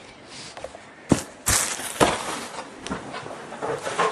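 Trading card box being handled: a sharp knock about a second in, then rustling of cardboard and wrapping, with a few smaller clicks.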